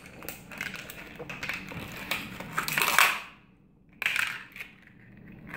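Stiff clear plastic toy packaging crackling and crinkling as it is squeezed and pulled apart by hand to free the figure inside, with a short pause about three seconds in.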